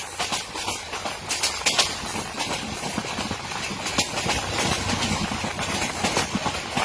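Passenger train running along the track, a steady rumble and hiss with irregular metallic clicks and clatter from the wheels and coaches.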